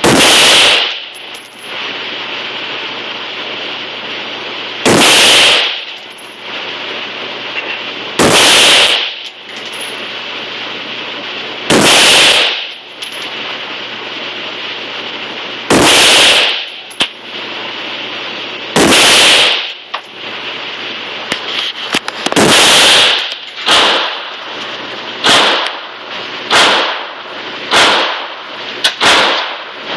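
Bushmaster AR-15 rifle firing single shots, about a dozen: slow aimed shots every three to four seconds, then a quicker string of about one a second near the end. Each shot is very loud and echoes off the concrete-block lane walls, with a steady background noise between shots.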